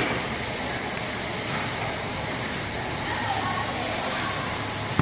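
Steady hiss and hum of factory machinery running, with a few light clicks.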